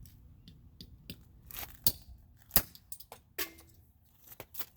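Irregular sharp clicks and taps of hard plastic Rubik's Cube pieces, the loudest about two and a half seconds in.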